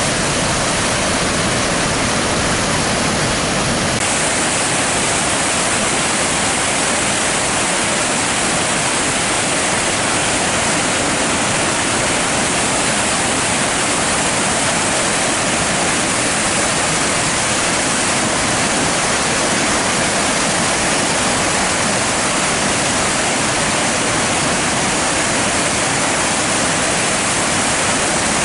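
River in flood rushing through a rocky gorge: a steady, loud wash of whitewater rapids and falls.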